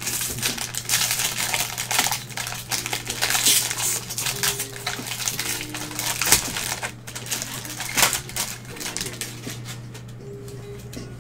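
Plastic wrapper of a 2021 Bowman baseball card pack crinkling as it is torn open and handled, dense rustling for about seven seconds, with a few more crackles about eight seconds in.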